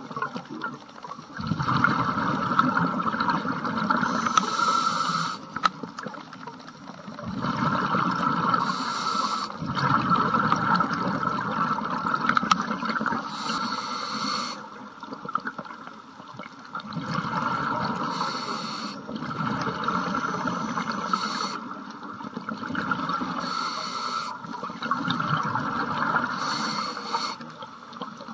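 Scuba diver breathing through a regulator underwater: a long bubbling exhale followed by a short, sharp inhale hiss, repeating about every five seconds.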